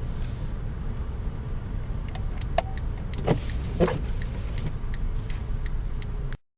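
Steady low road and engine rumble inside a smart fortwo's cabin while driving, with a few sharp clicks and knocks around the middle. The sound cuts off suddenly near the end.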